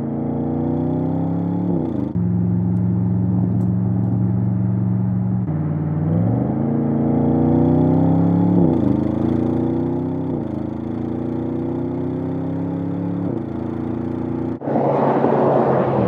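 Audi RS7 Sportback Performance's 4.0-litre twin-turbo V8 engine and exhaust under acceleration: the pitch climbs and drops sharply at each upshift, several times, with a stretch of steady revs about two to five seconds in. Near the end the sound breaks off abruptly into a louder, rougher rush.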